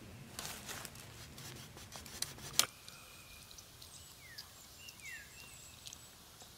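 Quiet woodland background: faint clicks and crackles for the first two and a half seconds, ending in one sharper click, then a faint steady high tone and two short falling bird chirps about a second apart.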